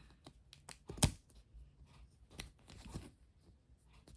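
A plastic capsule ball and its packaging being handled and pried open: scattered small clicks and rustles, with one sharper click about a second in.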